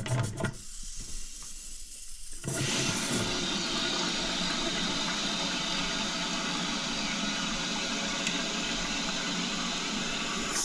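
Toilet cistern refilling through its float-operated fill valve: a steady hiss of rushing water that grows louder about two and a half seconds in and then holds even. The float has just been lowered to bring the water level down.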